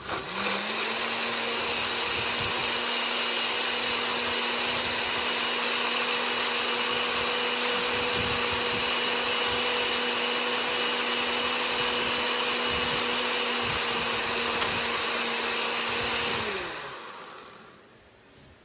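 Countertop blender running at full speed, blending the ingredients of a vegan Alfredo sauce: a loud steady motor whine that spins up at the start, runs for about sixteen seconds, then winds down with falling pitch as it is switched off.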